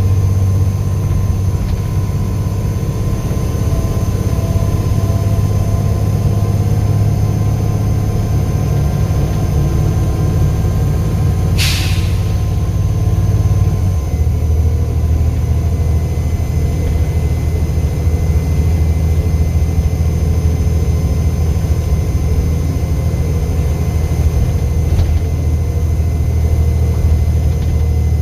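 Volvo B7 bus engine running steadily with a faint steady whine above its drone. There is a short hiss of air about twelve seconds in, and the engine note drops about fourteen seconds in.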